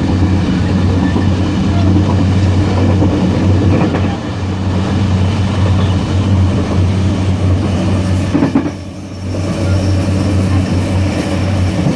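Loud running noise of a moving DR3100 diesel multiple unit heard in the gangway between cars: a steady low drone mixed with wheel-on-rail noise, briefly quieter about nine seconds in.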